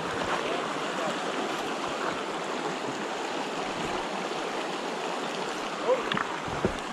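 Shallow, rocky mountain stream flowing over stones: a steady, even rush of water.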